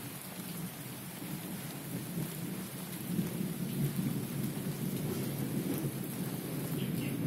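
Heavy rain falling steadily, a dense even hiss of drops on leaves and surfaces.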